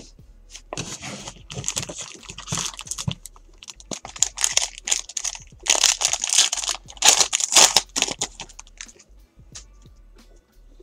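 Foil wrapper of a baseball trading-card pack being torn open and crinkled by hand: a run of crackling, rustling bursts over several seconds that dies away about a second before the end.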